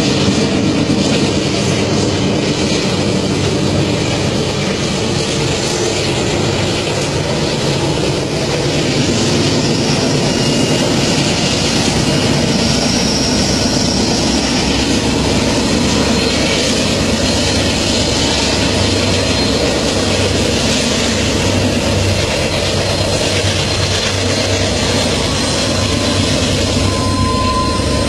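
Long freight train hauled by diesel locomotives running past, a loud steady mix of engine rumble and rolling noise. A thin high tone comes in near the end.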